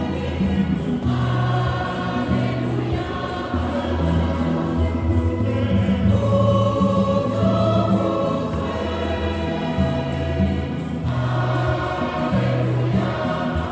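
A choir singing a hymn in harmony, with chords that change about once a second over a steady bass line and a light regular beat.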